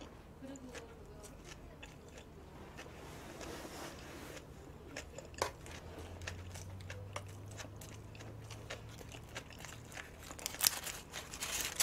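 Quiet chewing and mouth sounds of someone eating a sandwich, with scattered small clicks and crackles.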